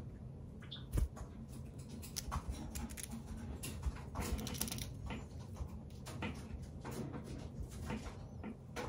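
White Java sparrow pecking and nibbling at a crisp cream-filled rolled wafer held in the fingers: an irregular run of small crunchy clicks, with one louder thump about a second in.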